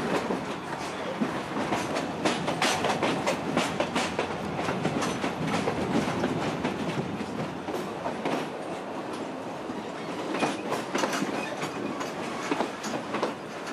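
Historic narrow-gauge train running on the track, heard from inside a wooden carriage with open windows: steady rumble with a dense run of wheel clicks and knocks over the rail joints, heaviest twice, a few seconds in and again near the end.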